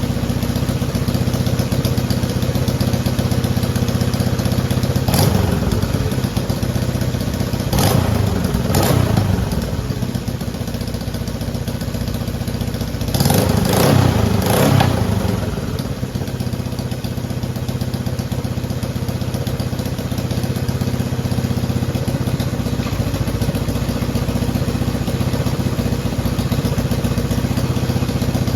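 Honda CJ360 motorcycle's parallel-twin engine running steadily, revved up and back down three times, the biggest rev about halfway through.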